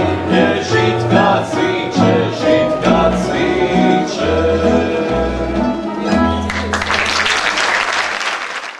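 Instrumental close of a folk song on plucked strings with a bass line, then audience applause breaking in about two-thirds of the way through.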